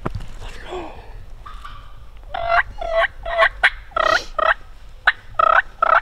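Turkey yelping: after about two quiet seconds, a run of about ten short, clipped notes at roughly three a second. A few sharp clicks fall among them.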